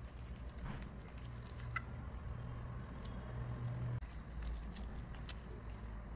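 Light crinkles, taps and clicks of a paper strip and tape being handled and pressed onto a plastic bottle, over a steady low hum.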